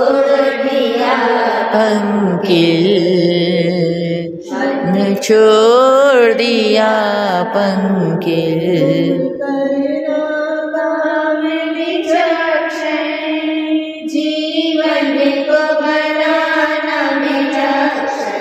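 Jain devotional singing by voices holding long notes that waver in pitch, with no real pause.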